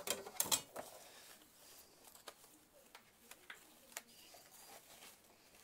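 Cardstock being handled as a die-cut piece is pulled free of the cutting die: soft rustles and a few light clicks, busiest in the first half second.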